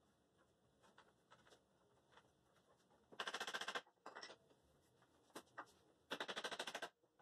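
A hammer knocking the rails of a wooden workbench frame into their joints: two quick runs of rapid knocks, each under a second, about three and six seconds in, with a few single taps between.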